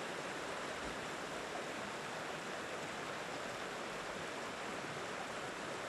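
A small creek's water rushing steadily.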